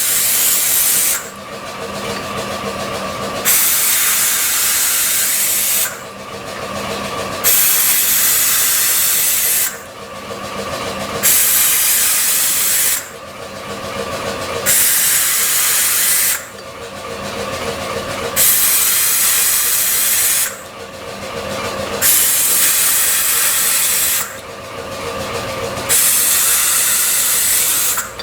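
Compressed air from a compressor hissing in repeated spells of about two seconds, roughly every three and a half seconds, with a quieter lower hum between them. The air is being put to a freshly reassembled cylinder head to check the valves for leaks.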